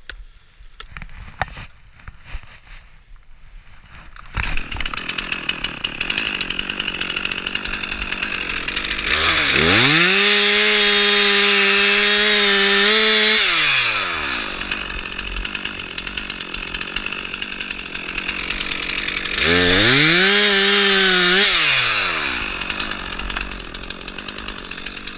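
A two-stroke chainsaw comes in suddenly about four seconds in and idles, then is throttled up to a high steady whine twice: a longer stretch of about four seconds, then a shorter one of about two seconds. Each time the pitch drops back to idle. The first few seconds hold only a few faint clicks.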